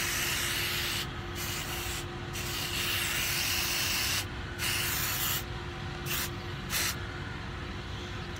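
Aerosol can of temporary blue hair-colour spray hissing in about six bursts that start and stop sharply. The longest lasts about two seconds, and the last two, near the end, are brief puffs.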